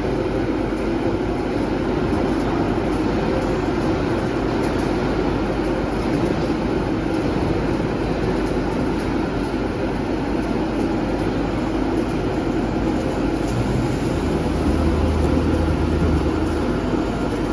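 CNC thin-blade slitter scorer machine running on corrugated paperboard: a steady mechanical running noise, with a deeper hum joining for a couple of seconds near the end.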